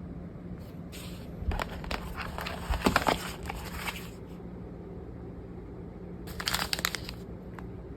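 Crinkling and rustling, like packaging being handled, in two spells with small clicks, the first for about three seconds and the second shorter near the end, over a steady low hum.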